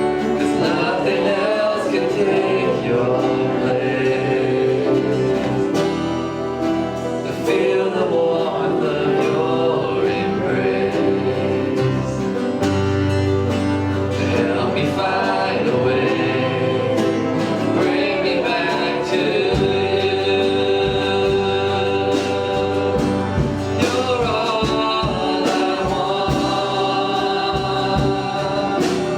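Worship music: a band with guitar accompanying singing, with sustained sung lines.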